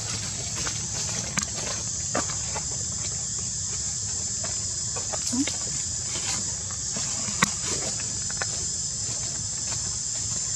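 Steady high-pitched insect chorus over a low steady rumble, with scattered small clicks and rustles and one brief rising squeak about halfway through.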